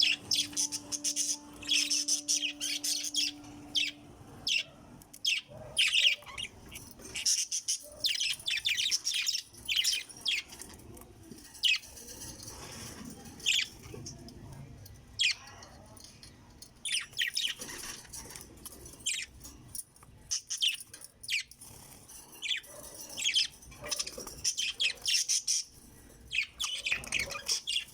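Lovebirds chirping and squawking: many short, sharp, high-pitched calls coming in quick irregular bursts.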